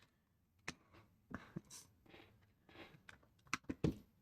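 Small clicks and brief rustles of tools and parts being handled on a workbench, with a quick cluster of sharper clicks near the end.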